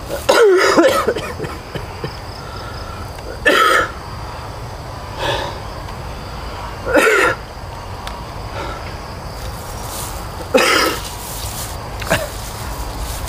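A person coughing repeatedly: a longer fit at the start, then single coughs every couple of seconds.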